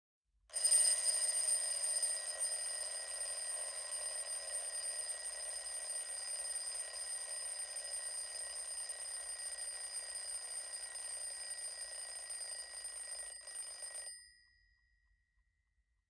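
Alarm clock ringing without a break for about thirteen seconds, loudest as it starts, then stopping with a brief ring-out. It signals that the five-minute timer has run out.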